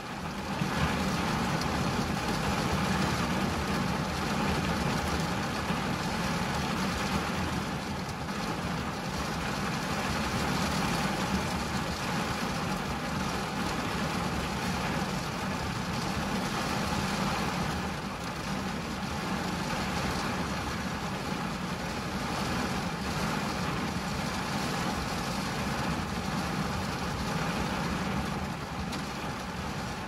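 Rain falling on a car's windscreen and body, heard from inside the car: a steady, even hiss with a low rumble underneath.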